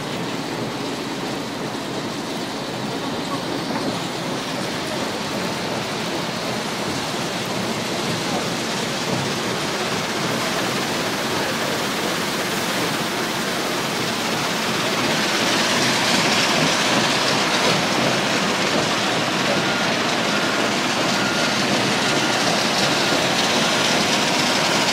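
Wheel loader tipping a bucket of aggregate into a steel dump-truck body: a dense rattling hiss of pouring stone over heavy machinery running. The noise grows louder and hissier about halfway through.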